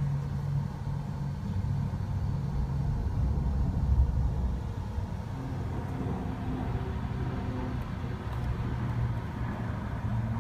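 Steady low engine rumble with a droning hum.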